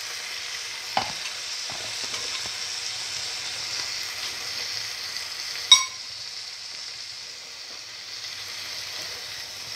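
Onion, garlic, tomato and fenugreek leaves sizzling in oil in a frying pan as a spatula stirs them: a steady frying hiss. A sharp clack with a brief ring about six seconds in.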